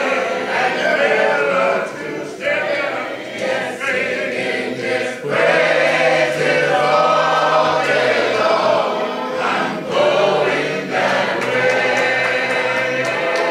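Many voices singing a gospel hymn together a cappella, with no instruments.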